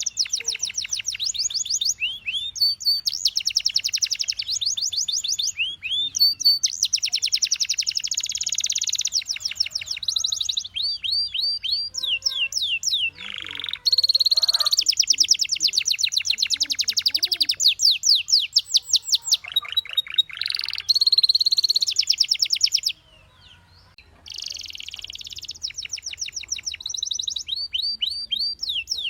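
Domestic canary singing: long trills of rapid repeated notes and rolling phrases, switching from one trill to the next, with a brief pause about three quarters of the way through.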